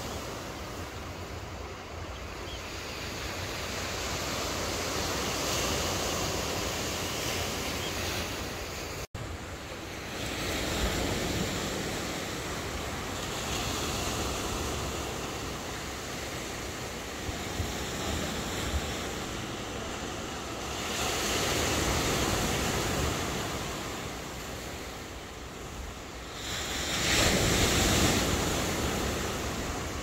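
Sea waves breaking and washing over a rocky shore, the surge rising and falling every few seconds, with wind buffeting the microphone. The sound cuts out for an instant about nine seconds in.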